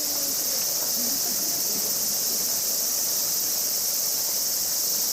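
A steady, high-pitched cicada chorus, an even unbroken buzz, with faint voices of people underneath in the first second or so.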